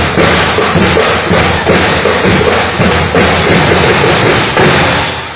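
School drum and lyre band playing, its drums beating a loud, steady march beat; the sound fades away near the end.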